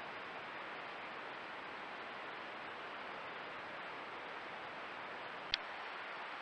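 Steady hiss of a trail camera's microphone self-noise, with one sharp click about five and a half seconds in.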